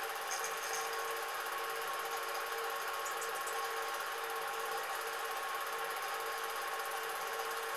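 Cine film projector running: a steady mechanical whirr with a constant hum and a fine, rapid flutter on top.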